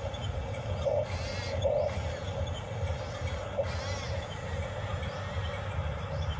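Small electric motors of a radio-controlled excavator running: a steady low hum with a mid-pitched drone that swells about once a second, and brief wavering whines twice.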